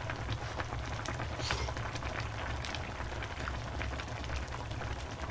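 A pot of budae jjigae (army stew) bubbling on a burner: a steady crackly simmer full of small pops. A brief breathy hiss comes about a second and a half in.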